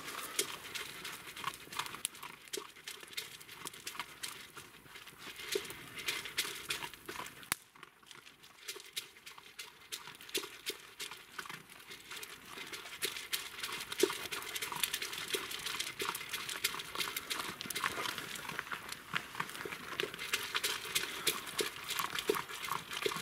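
Three dogs eating from their bowls: irregular crunching of dry food and clicks and knocks of the bowls, easing off briefly about eight seconds in.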